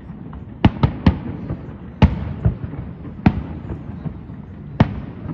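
Aerial firework shells bursting at a distance: a string of about seven sharp booms, three in quick succession about a second in, with a low rumble between them.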